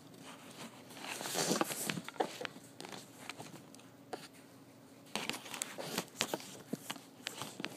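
Handling noise from a camera being gripped and tilted by hand right at the microphone: rubbing and rustling against the device, heaviest about a second in, with scattered clicks and knocks later on as it is set in place.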